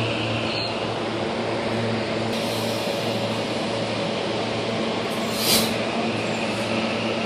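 SEPTA electric multiple-unit commuter train moving slowly along the platform with a steady low hum, and a short, sharp hiss of air about five seconds in.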